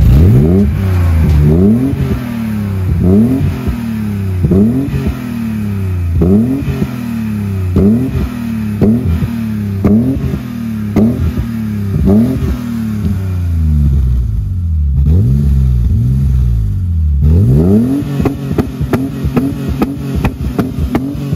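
BMW E28's engine being revved through its twin-tip exhaust in quick repeated throttle blips, a little more than one a second, each rising and falling in pitch. Near the end, after a short quieter spell, it takes one longer rev and then runs on with a rapid pulsing.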